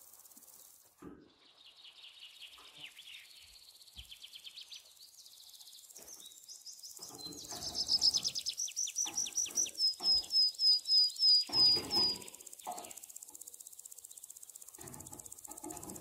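Budgerigar chirping: a run of short high chirps that grows loudest from about eight seconds in and ends in a string of evenly spaced notes about three a second, then stops a few seconds before the end.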